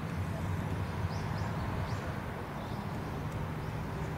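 KiHa 185 series diesel railcar's engine idling with a steady low hum while the train stands in the station, with a few short, faint bird chirps over it.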